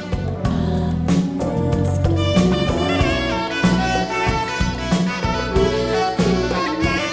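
Live instrumental jazz: a moving melody over bass and a drum kit keeping a steady beat.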